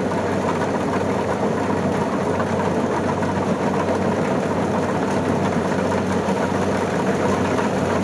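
Kubota DC70 rice combine harvester running steadily as it drives forward, its diesel engine and machinery making a dense, even mechanical noise.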